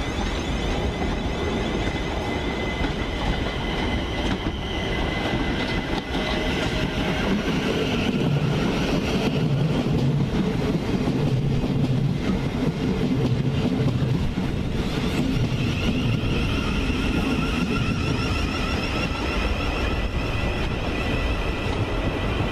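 South Western Railway Class 707 Desiro City electric multiple units running on the tracks: a steady rumble of wheels on rail that is loudest about halfway through, with a high whine over it. A thin steady tone sounds in the first several seconds, and the whine comes back stronger in the last few seconds as a unit draws into the platform.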